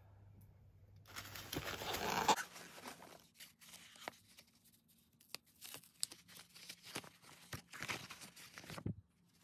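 Rustling and crackling of packaging being handled: a loud rustle about a second in as a moulded paper-pulp wrap is pulled from among foam packing peanuts, then scattered crackles as the pulp wrap is peeled open.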